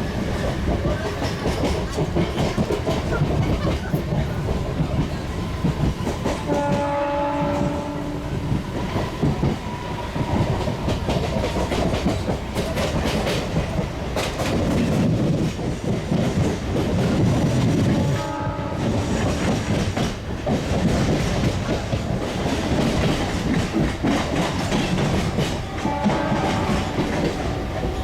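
A vehicle running with a steady rumble and rapid clicking throughout, broken by three short pitched tones about 7, 18 and 26 seconds in.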